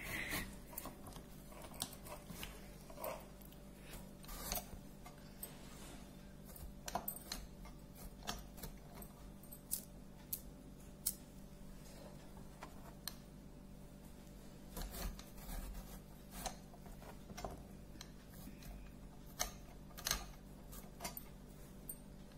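Serrated knife cutting a raw green mango on a wooden cutting board: irregular clicks and knocks as the blade goes through the firm flesh and meets the board, over a faint steady hum.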